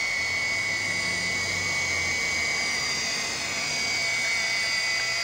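Small electric radio-controlled model helicopter hovering: a steady high-pitched motor whine over the buzz of its rotors.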